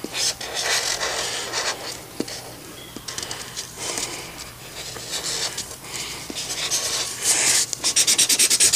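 Drawing tool scratching across paper: drawing and colouring-in strokes, turning into fast back-and-forth scribbling near the end.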